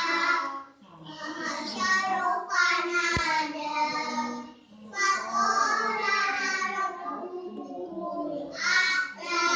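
Children reciting the Quran aloud from memory in a melodic chant. Long held phrases break with short pauses about a second and about five seconds in.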